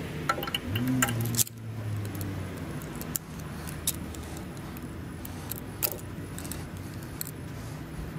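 Steel bungee-cord hooks and pliers clinking and clicking against each other and the nails: a quick cluster of light metallic clicks near the start, then single clicks every second or two, over a steady low hum.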